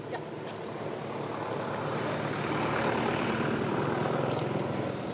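An engine passing by: a steady motor rumble that swells to its loudest about three seconds in and then fades.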